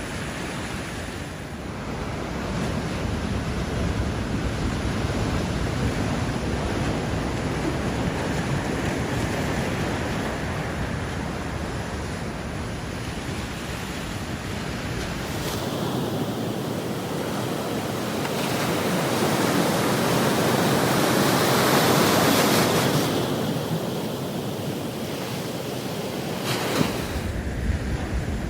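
Ocean surf breaking and washing ashore, with wind buffeting the microphone. The sound changes abruptly about halfway through, then swells to its loudest about three-quarters of the way in.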